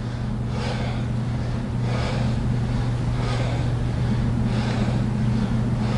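A person breathing hard in and out, about one breath a second, in time with single-leg glute bridge reps, over a steady low hum.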